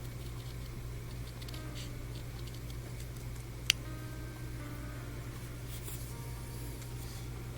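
Faint small clicks and scratches of hobby tools working a decal on a small model, with one sharp click about three and a half seconds in, over a steady low electrical hum.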